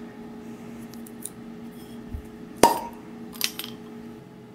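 Glass swing-top beer bottles being handled: one sharp clink about two-thirds of the way in, then a softer double click shortly after, over a steady low hum.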